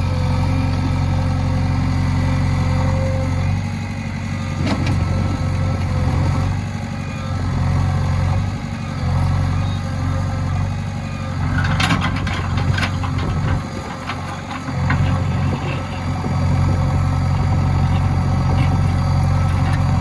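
JCB backhoe loader's diesel engine running steadily at low revs, with a few sharp knocks about 5 and 12 seconds in.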